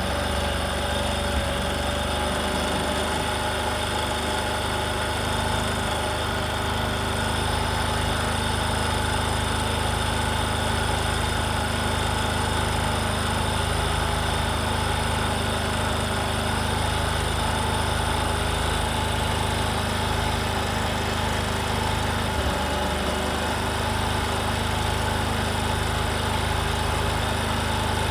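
Bajaj Discover 125's single-cylinder four-stroke engine idling steadily while its carburettor fuel mixture is being adjusted.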